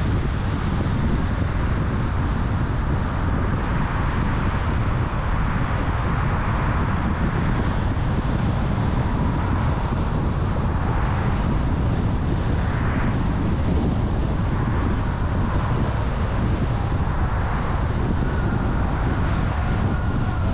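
Steady road and engine noise of a car driving, a continuous low rumble with hiss.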